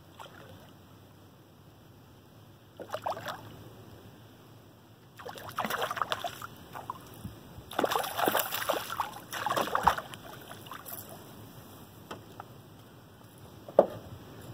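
Hooked small snook thrashing and jumping at the water's surface beside the boat, splashing in several bouts about three, six and eight to ten seconds in. A single sharp knock near the end.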